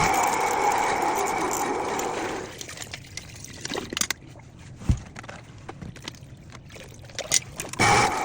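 Motorized drain snake running with a steady hum, cutting out about two and a half seconds in; then water trickling with a few scattered knocks, and the machine starts up again near the end.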